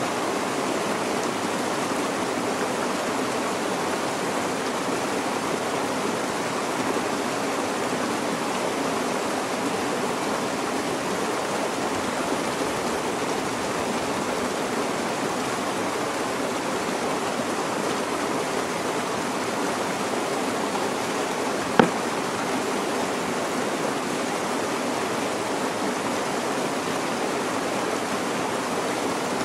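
Steady rushing of a mountain stream, even and unbroken, with one sharp click a little past two-thirds of the way through.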